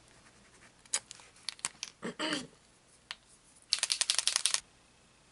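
White Posca paint marker being shaken, its mixing ball rattling in a quick run of about ten clicks in under a second, after a few scattered handling clicks.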